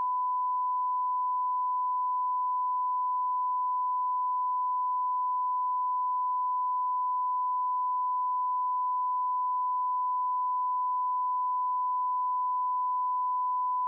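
A single steady electronic alert tone near 1 kHz, held unbroken and loud: the attention signal of a mock Emergency Alert System broadcast.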